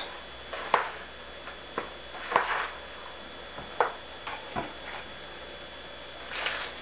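A utensil stirring thick instant mashed potatoes in a bowl: a few scattered clinks and knocks against the bowl, with a brief soft rush of noise near the end.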